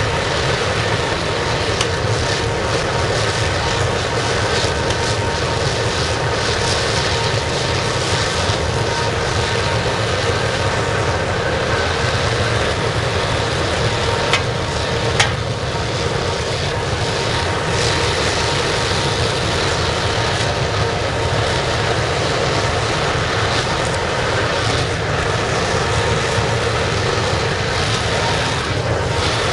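Waste-oil burner firing a scrap aluminium melting furnace, running with a steady rushing noise of blower and flame. Two sharp clicks sound about halfway through.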